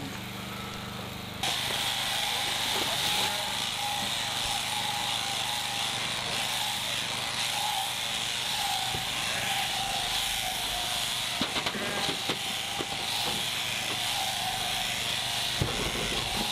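Electric sheep-shearing handpiece on an overhead hanging drive, running steadily as it cuts through fleece. It gives a buzzing whine that wavers slightly in pitch and starts about a second and a half in, after a low hum.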